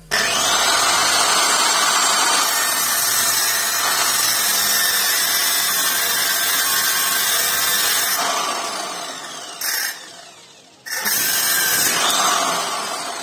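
Angle grinder mounted in a cut-off stand, its abrasive disc cutting through a steel rebar. It starts loud at once, sags after about eight seconds, drops out just before eleven seconds, then comes back loud and fades near the end.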